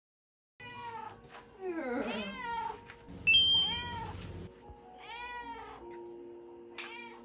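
Domestic cat meowing repeatedly: several drawn-out meows that rise and fall in pitch, a hungry cat asking to be fed.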